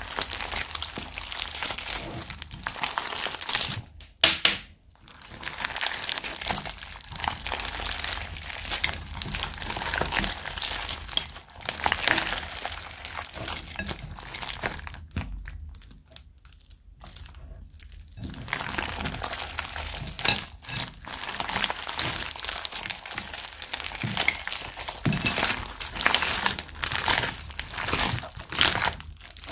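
Hands kneading and squeezing sticky slime mixed with foam beads and sprinkles: a dense, irregular run of small sticky pops and squishes, with brief pauses about four seconds in and around sixteen seconds.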